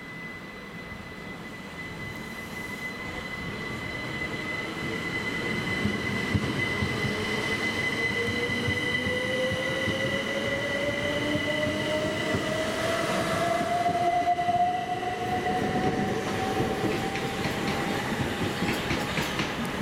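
Bombardier Class 375 Electrostar electric multiple unit pulling away and accelerating. A whine climbs steadily in pitch as it gathers speed, over a steady high tone and rising running noise, growing louder, with light clicks near the end.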